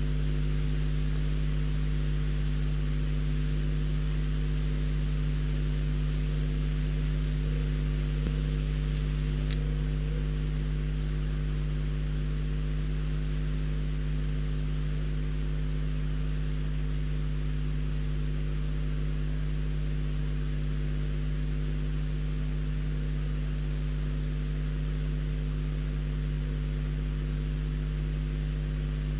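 Steady electrical hum and hiss with a thin high whine, from the nest-box webcam's audio feed, with a couple of faint clicks about nine seconds in.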